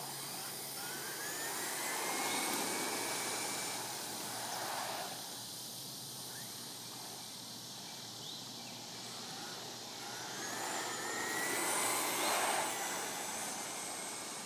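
Electric remote-control car's motor whining and rising in pitch as it speeds up, in two runs: one in the first few seconds, another from about ten to thirteen seconds in.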